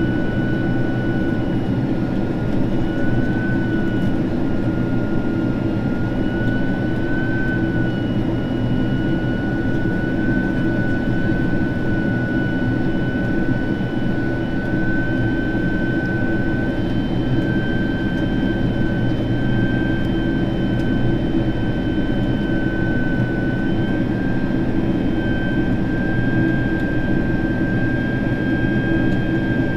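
Boeing 767-300ER jet engines heard from inside the cabin during the climb: a steady rumble of engine and airflow noise with a high fan whine that creeps slowly upward in pitch.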